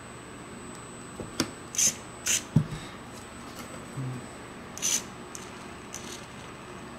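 Steering servo of a powered RC crawler giving three short whirring bursts, two close together near 2 seconds and one near 5 seconds, among a few light clicks and taps from handling the chassis.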